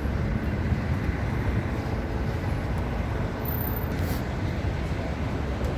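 Steady low noise of road traffic.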